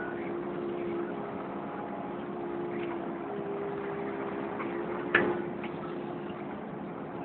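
Kubota KX080 excavator's diesel engine and hydraulics running steadily with a constant hum while the tiltrotator bucket digs. A single sharp knock comes about five seconds in.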